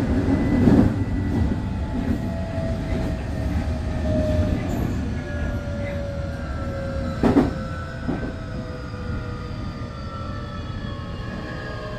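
Semboku 9300 series electric train's motors and inverter whining in several tones that fall steadily in pitch as the train slows, with running noise under them. There is one sharp knock about seven seconds in.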